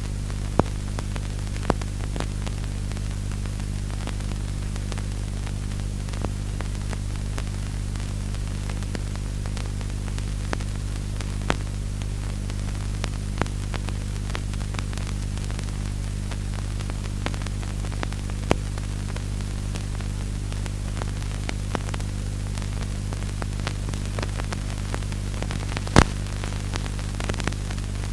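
Steady low electrical hum with hiss, broken by scattered faint clicks and crackles. One click near the end is louder.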